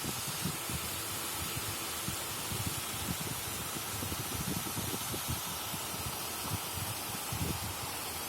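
Waterfall rushing: a steady hiss of falling water, with an uneven low rumble underneath.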